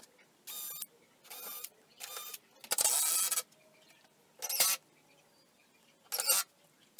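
Cordless drill motor running in about six short bursts, drilling pilot holes into a pine panel. The longest and loudest burst comes about three seconds in.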